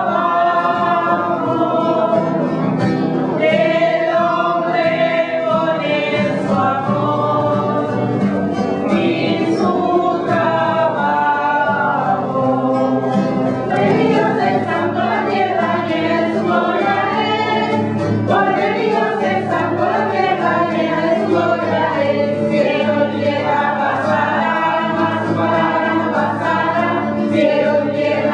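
A choir singing a church hymn together, voices sustained without a break.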